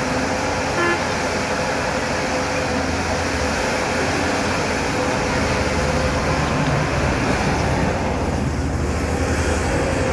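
Diesel engine of a JCB excavator running steadily under work, a continuous hum with a steady tone over it.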